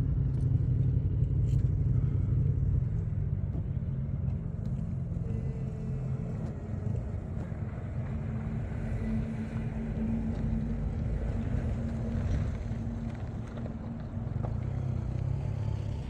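An engine running steadily with a low rumble and a hum, as from a car or boat under way.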